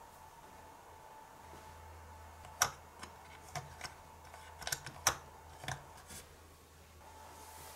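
Light plastic clicks and taps from a miniature plastic toy bread maker being handled, its small lid and side knob pressed and fitted: about nine short clicks, most of them between about two and a half and six seconds in.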